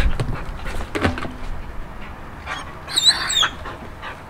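Four-month-old German Shepherd puppy giving one short, high-pitched whine about three seconds in, the frustrated whining of a puppy that wants its toy but is unsure how to get it. Soft scuffs and knocks come from its paws on the rubber tyres.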